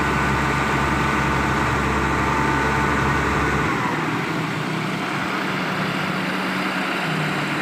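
Diesel engines of a Hino concrete mixer truck and a Hitachi Zaxis excavator running steadily. The deepest part of the rumble drops away a little before halfway, while a faint higher whine dips in pitch and fades out.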